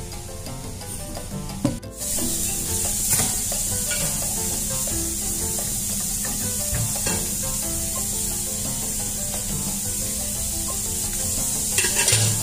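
Background music of short melodic notes over a steady high hiss that switches on about two seconds in, with a few light knocks, the loudest near the end.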